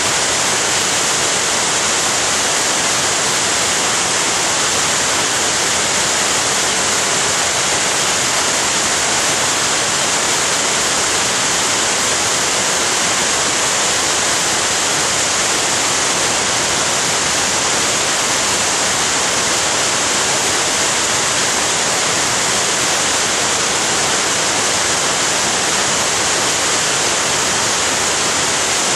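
Waterfall rushing steadily, a loud, unchanging hiss of falling water.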